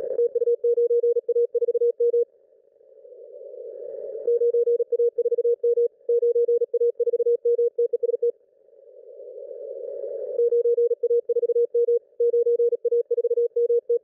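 Morse code (CW) from a ham radio station on the 20-metre band, received through an RTL-SDR with a narrow CW filter: a tone of about 500 Hz keyed fast, around 37 words a minute, in three runs of about four seconds. Between the runs a hiss of band noise grows louder. The operator is sending his call sign, which the decoder reads as 9A4M, over and over with "test", as if testing his transmitter.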